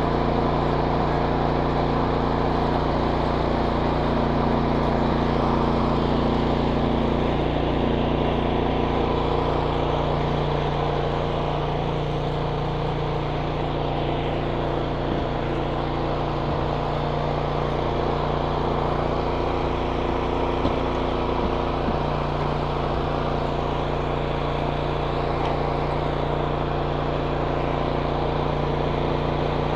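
An engine running steadily at an even speed, with a few faint clicks partway through.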